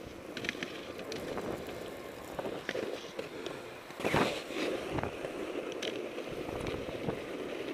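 Skis sliding and scraping over packed snow, with scattered clicks and a louder scrape about four seconds in.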